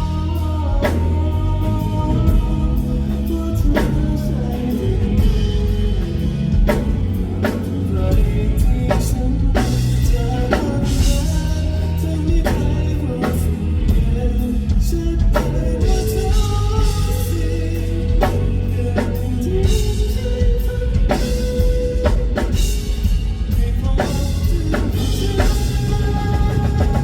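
Live band playing pop-rock music, led by a drum kit keeping a steady beat.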